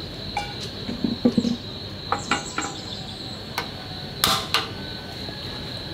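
A frying pan and cookware knock and clink against a portable gas stove in a string of separate sharp hits, the loudest two just past the middle. Crickets chirr steadily and high-pitched throughout.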